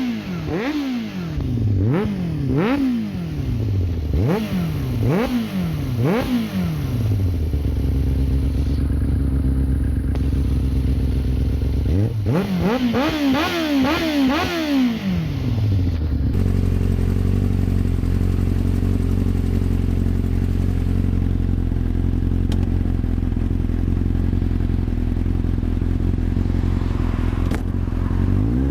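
1993 Yamaha YZF750SP's inline-four engine through a full Black Widow exhaust with the EXUP valve deleted. It is blipped sharply about once a second for several seconds, then settles to a steady idle, gets a short burst of quick revs, and idles steadily through most of the remainder.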